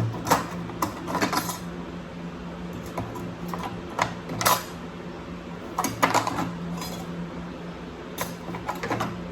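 Scattered sharp metallic clicks and clinks of a stock headlight assembly being pried apart, its metal frame coming off, over a steady low hum.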